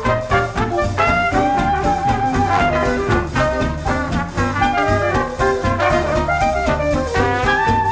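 Background music: upbeat jazz with a brass melody over a steady beat.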